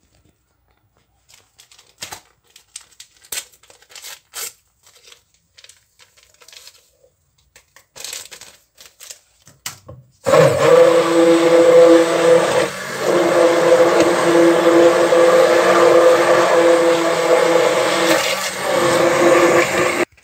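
A few faint clicks and knocks, then about halfway through a handheld stick blender switches on and runs steadily at full speed in a steel bowl of semolina batter, beating in the baking powder. Its motor dips briefly twice and cuts off just at the end.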